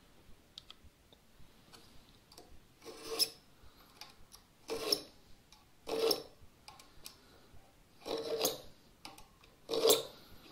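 Marking knife drawn along a square across a softwood bench leg, scoring a knife line for a crosscut: five scraping strokes a second or two apart, a few faint ticks before the first.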